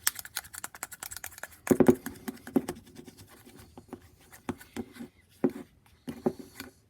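A fork or spoon stirring a thick mixture of shaving cream, glue and lotion in a bowl: irregular scraping and clicking against the bowl, with some duller knocks, quieter near the end.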